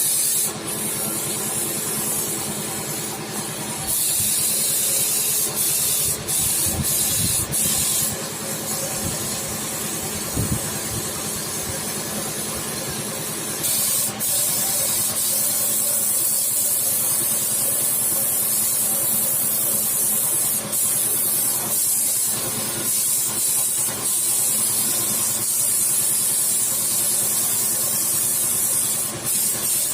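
Paint spray gun hissing in long stretches as paint goes on, easing off for a few seconds now and then, over a steady machine hum.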